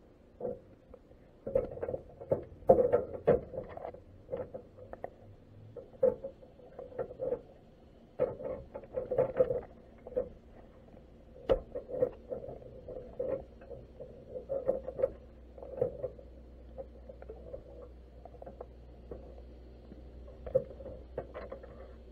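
Irregular, muffled clicking and knocking picked up underwater by a camera inside a crab pot, several taps a second in uneven clusters, busiest in the first half.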